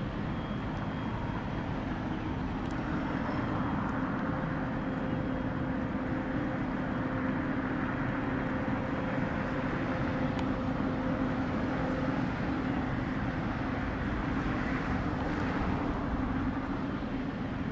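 Distant diesel-hauled freight train crossing a river bridge: a steady rumble with a low, even hum.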